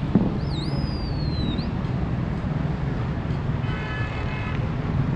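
Steady hum of city traffic heard from a rooftop, with a sharp thump just at the start. A bird gives a whistled, swooping call in the first second or so, and a vehicle horn sounds briefly about four seconds in.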